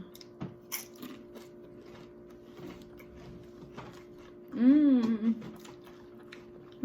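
People eating on a mukbang: scattered small crunches and clicks of chewing and handling food, with a steady faint hum underneath. About four and a half seconds in, one short wavering hummed vocal sound of enjoyment is the loudest thing.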